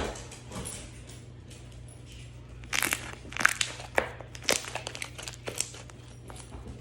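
Slime being squeezed and played with by hand, giving a run of irregular crackles and clicks that starts about three seconds in, over a low steady hum.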